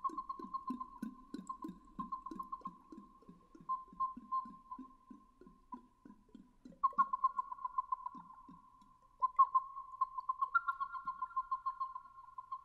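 Whistling water vessels (water whistle bottles) warbling on a steady high whistle in rapid pulses, with a low pulsing underneath for the first few seconds. A second, higher whistle joins about seven seconds in and again near the end.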